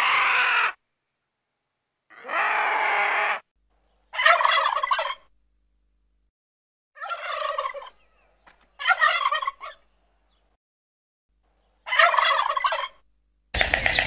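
Male turkeys gobbling: four rattling gobbles of about a second each, following two smoother, drawn-out calls.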